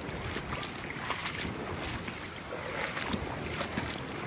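Rushing floodwater from an overflowing creek: a steady wash of water noise, with wind buffeting the microphone.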